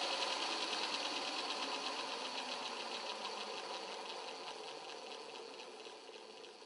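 Belt grinder running with a steady rushing whir and a fine rapid flutter, fading gradually away.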